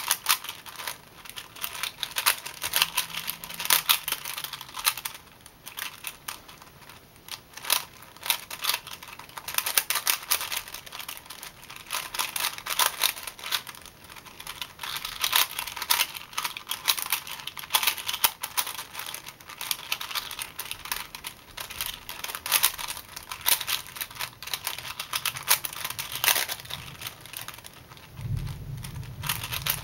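A plastic 4x4 puzzle cube being turned fast in a speedsolve: rapid, uneven clicking and clacking as its layers rotate and snap into place. A low hum joins near the end.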